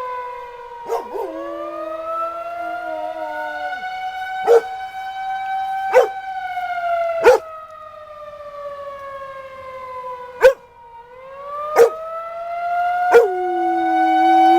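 Outdoor tornado warning siren sounding for its monthly test, several tones together gliding slowly up, down and up again in pitch. A dog barks about seven times over it, each bark a sharp spike louder than the siren.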